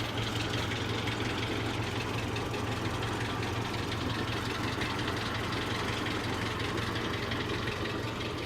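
Mazda B2000 pickup engine idling, a steady low hum with no change in speed.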